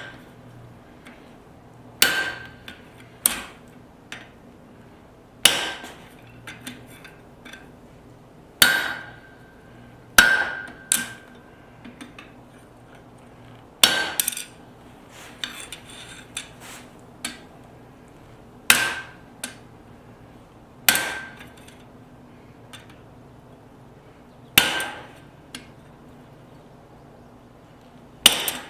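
Blacksmith's hammer striking hot steel on the anvil, about eleven heavy blows spaced a few seconds apart, each with a short metallic ring and some lighter taps between them. This is the hand-forging of a tong piece, most likely driving a punch through the stock.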